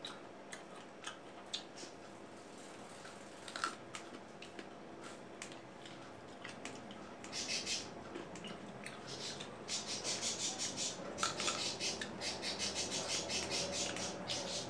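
Close-up eating sounds of fresh cut fruit: scattered light clicks of fingers and fruit pieces on the plates, then from about halfway a fast, continuous run of crackly crunching as the fruit is bitten and chewed.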